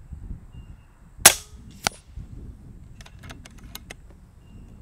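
A single shot from an FX Wildcat MK2 .25 regulated PCP air rifle: a sharp crack about a second in, and about half a second later a fainter smack, consistent with the pellet striking the target downrange. Near the end comes a quick run of light clicks as the side lever is worked to load the next pellet.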